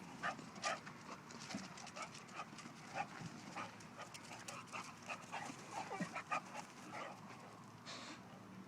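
Dog panting and whimpering faintly, in short irregular puffs and snuffles.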